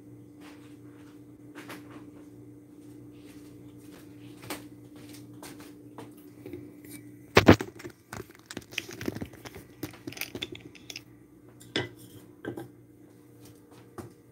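Handling noise of a phone being picked up and set down on a kitchen counter: scattered clicks and knocks, a sharp knock about seven seconds in, then a burst of clattering and rattling. A steady low hum runs underneath.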